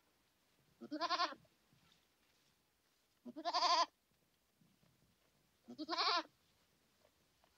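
An animal bleating three times, each call about half a second long with a quavering pitch, about two and a half seconds apart.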